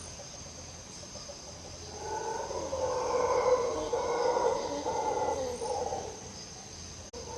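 An unidentified animal's long, rough call, swelling from about two seconds in and fading away near six and a half seconds, over a steady high-pitched hum.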